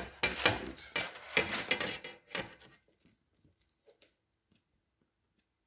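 A long aluminium ruler being slid and repositioned across a photograph on a tabletop, in several scraping, rubbing strokes that stop about two and a half seconds in, followed by a few faint light taps.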